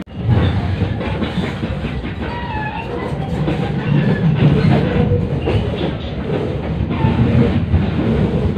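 Running noise of a moving passenger train heard from inside the carriage: a steady low rumble with the clickety-clack of the wheels over the rail joints.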